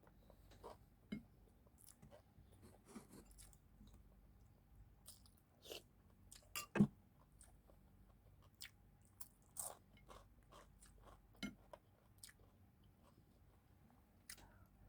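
Close-up eating sounds: chewing and crunching with scattered sharp clicks and crackles, the loudest about seven seconds in.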